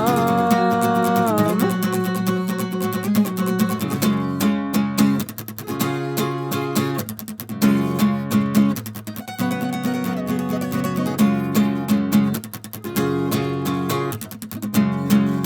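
Acoustic guitar strummed in a steady chord pattern, with the last held note of a sung line fading out about a second and a half in.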